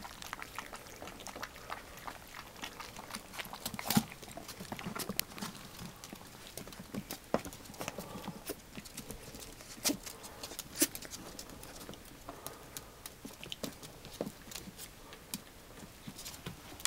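Dachshund puppies eating dry kibble from a bowl: irregular small clicks and crunches as the kibble is chewed and knocked about.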